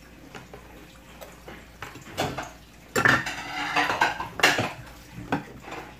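Metal spoons clinking against ceramic cereal bowls: scattered clinks, busiest about halfway through.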